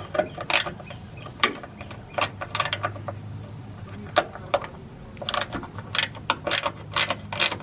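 Hand ratchet wrench clicking in short, uneven runs as a 10mm fastener is worked loose on the brake line and hose fittings.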